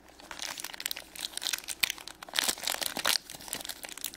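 Shopkins foil blind bag crinkling in the hands as it is torn open, a dense run of crackles.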